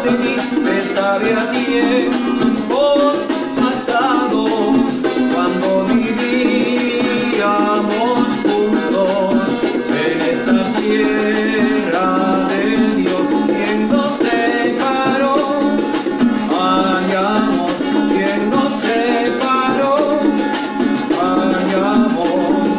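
A man singing a Spanish-language ballad, accompanied by a strummed small acoustic guitar and a maraca shaken in a steady rhythm.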